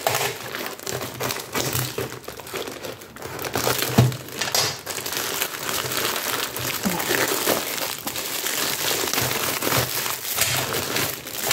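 Plastic shipping pouch crinkling and rustling as it is handled and opened by hand, with a sharper crackle about four seconds in.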